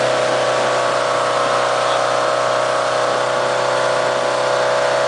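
Towing motorboat's engine running steadily at speed, a constant tone over the rush of water from the wake.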